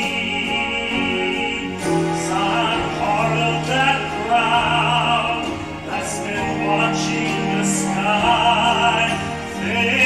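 A man singing into a handheld microphone, holding long notes with vibrato, over sustained instrumental accompaniment.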